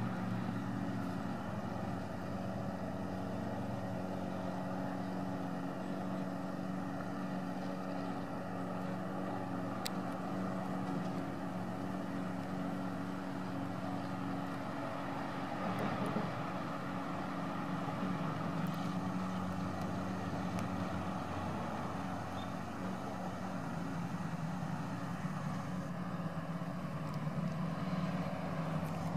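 A steady low mechanical hum of a motor running, with a couple of faint clicks.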